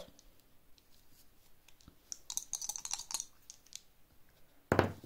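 Dice clattering as they are rolled onto a table: a quick run of small hard clicks lasting about a second. Near the end comes a single loud thump.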